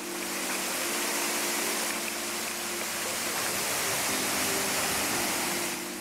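A waterfall cascading down a rock face: a steady rush of falling water. Low held notes of background music sit under it.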